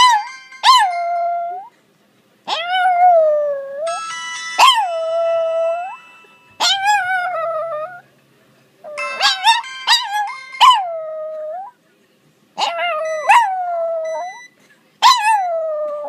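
A Maltese dog howling in a series of long, wavering howls, each rising and then sliding down in pitch, with short pauses between them. A phone ringtone's electronic tones play under some of the howls, and the dog is howling at the ringtone.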